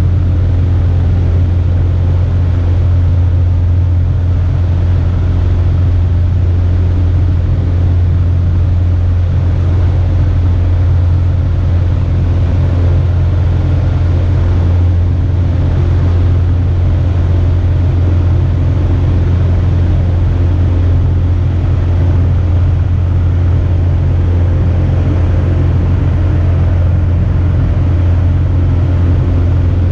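Cessna 150's Continental O-200 four-cylinder engine and propeller droning steadily in cruise, heard inside the cabin, with a hiss of rushing air over it.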